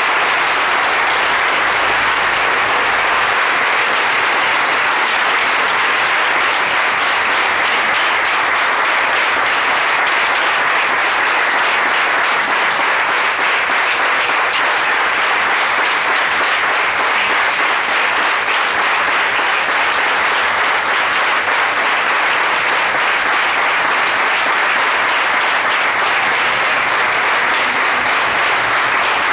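Audience applauding, dense and steady clapping from a large crowd that does not let up.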